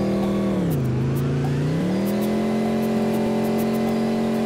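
Bus engine running steadily under load; about half a second in its pitch drops sharply, holds low for about a second, then climbs back to its earlier level. Faint light ticks and rattles sound over it.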